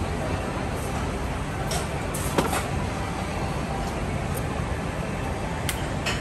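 Busy restaurant kitchen ambience: a steady low rumble of background noise with a few short clinks of plates and utensils on the counter, the sharpest about two and a half seconds in.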